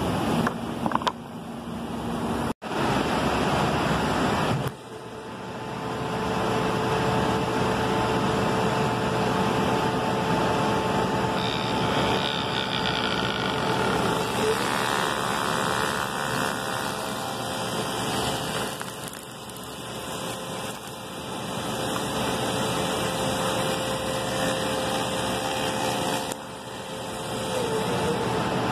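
Spindle shaper running steadily with a constant whine while a curved trim piece is fed past its cutter head, guided by a bearing riding on a screwed-on template. The sound cuts out for an instant about three seconds in.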